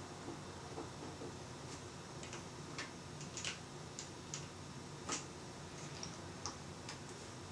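A dozen or so light, irregular clicks from an oscilloscope's front-panel buttons and multipurpose knob being worked by hand, the loudest about five seconds in.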